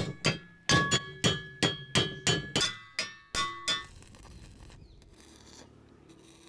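Hammer striking metal about three times a second, each blow ringing with the same clear metallic tones. The strikes stop about four seconds in.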